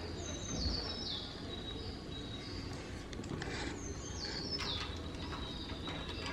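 Faint bird chirps: a short run of high, falling notes about a second long, repeated about four seconds later.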